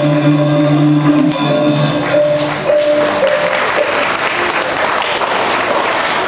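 Music with held notes ends about two and a half seconds in, and the audience applauds.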